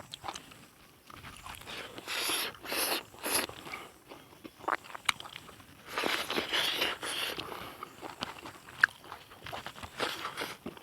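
Close-up chewing and crunching of a person eating, in irregular bursts with sharp crunches and clicks, heaviest about two seconds in and again about six seconds in.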